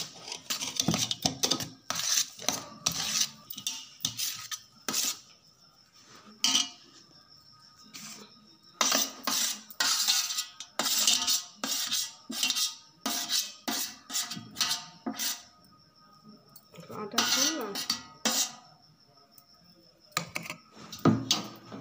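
Metal spoon scraping and clinking against a stainless steel plate in repeated short clusters, with pauses between.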